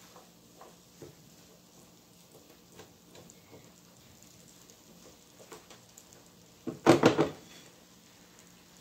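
Silicone spatula stirring and scraping meat crumbles in a nonstick frying pan, light scrapes and ticks, then a brief loud clatter of a few knocks about seven seconds in.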